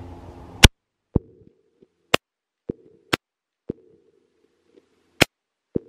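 Weatherby PA-08 12-gauge pump-action shotgun fired four times with full-size 2¾-inch shells, each loud shot followed about half a second later by the clack of the pump being worked to eject and chamber the next shell.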